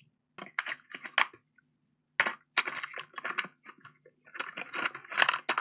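Plastic charger tips and cable adapters clicking and clattering against each other in a cardboard box as hands rummage through them, in several short clusters of quick clicks.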